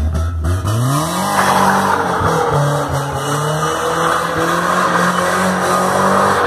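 BMW E36's engine revving hard, climbing quickly in the first second or so and then held high, rising and dipping, while its rear tyres spin and squeal as the car slides round in donuts.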